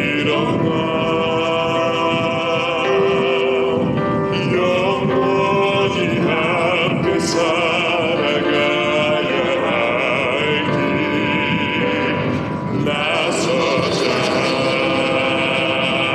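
Live pop ballad sung through a PA: a strong solo voice holds long notes with wide vibrato over a full backing track.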